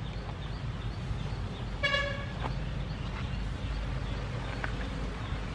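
A single short goose-like honk about two seconds in, over a steady low rumble.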